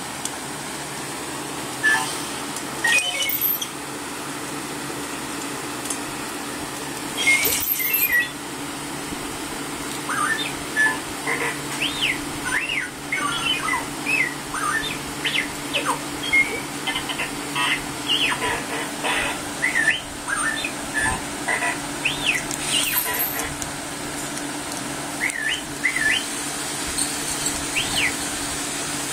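Toy R2-D2 robot chirping and whistling in quick, rapidly rising and falling electronic beeps, a long run of them starting about a third of the way in, with a few short rattly bursts before that. A steady electric fan hum lies underneath.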